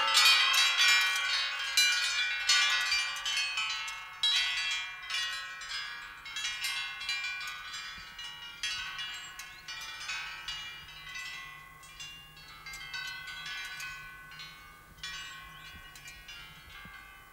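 Chimes ringing: many metal tones struck at irregular moments, overlapping and each fading away, starting suddenly and slowly growing quieter.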